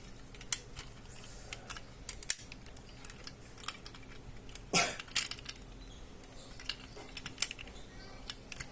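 Scattered small plastic clicks and taps from an Optimus Prime 8818-D transforming toy being handled, as its parts are folded and its tabs pushed into place in truck mode; one louder click about five seconds in.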